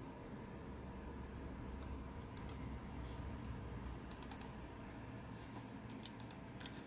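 Computer mouse clicking in small clusters over a faint low hum: a pair of clicks about two and a half seconds in, a quick run of about four clicks about four seconds in, and a few more near the end.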